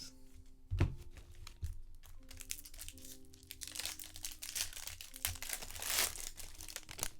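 Crinkling and tearing of a baseball card pack wrapper with cards being handled, heaviest in the second half, with a dull thud about a second in. Soft background music plays underneath.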